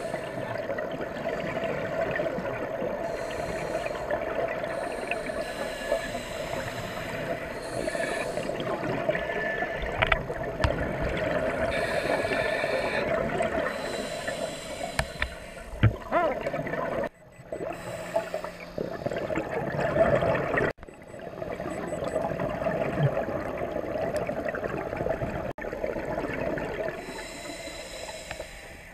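Scuba regulator breathing picked up underwater through a camera housing: bursts of exhaust bubbles every few seconds over a steady watery hiss. The sound drops out abruptly a few times, about two thirds of the way through.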